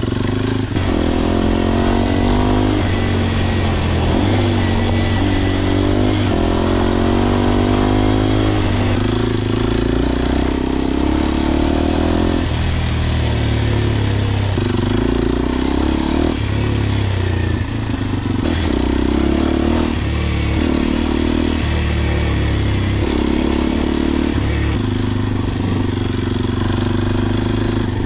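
Kawasaki KLX230SM's single-cylinder four-stroke engine running through a Delta Barrel4-S slip-on exhaust under riding load, its pitch rising and dropping over and over as the throttle is opened and closed and the gears change. Steady wind rush on the action camera's built-in microphone runs under it.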